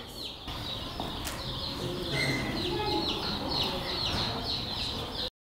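A rapid series of short, high chirping animal calls, each falling in pitch, about three a second, cutting off abruptly near the end.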